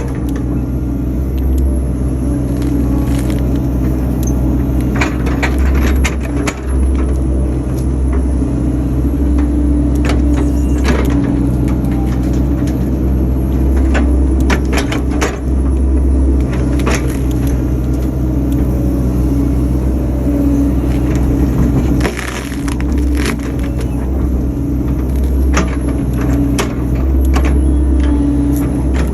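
Excavator engine running steadily, heard from inside the cab, with repeated cracks and knocks as the bucket works at big tree stumps.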